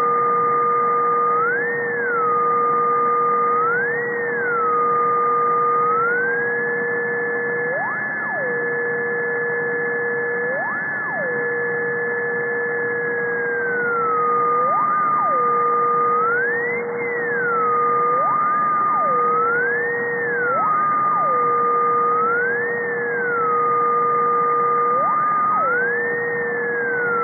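Ultrasonic emission from above 50 kHz, heard shifted down into hearing range as two steady electronic tones, one low and one higher. Each tone swoops briefly up in pitch and back down every few seconds, and the higher one stays raised for about seven seconds midway. The uploader suspects a switched-mode power supply.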